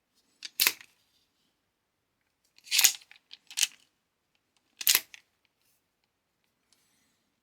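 Sharp mechanical clacks of a hand tool's mechanism being worked, four in all and irregularly spaced, the last about five seconds in.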